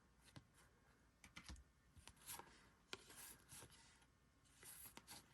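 Faint rustling and light slides of baseball trading cards being handled and flipped through, with a few small ticks as cards are moved.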